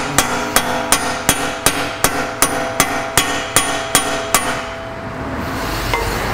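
Hammer blows on a punch set in the centre of a Land Rover Discovery 3 driveshaft stub, driving it back through the hub, where it has started to seize for lack of grease. About a dozen sharp metal-on-metal strikes, a little under three a second, each followed by metallic ringing. The strikes stop about four and a half seconds in.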